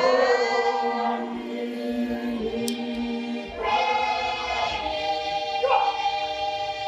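A group of voices singing together in long held notes, pausing briefly about three and a half seconds in before starting a new phrase.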